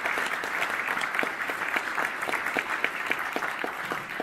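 Audience applauding, a dense run of many hands clapping at once that thins slightly toward the end.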